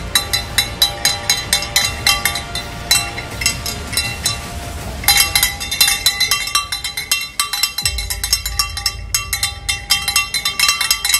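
A small hand bell shaken rapidly and continuously, a quick run of metallic rings. It breaks off for about a second near the middle, then carries on.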